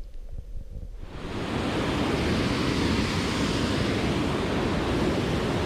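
Low rumbling thumps, then from about a second in a steady, even rush of water from a small stream's riffles or falls.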